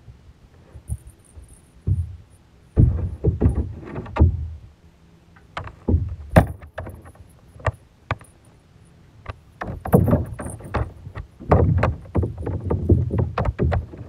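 A dog splashing and lapping in a plastic baby pool, heard from a waterproof camera under the water: irregular bursts of muffled sloshes and sharp knocks, heaviest in a few clusters, with quieter stretches between.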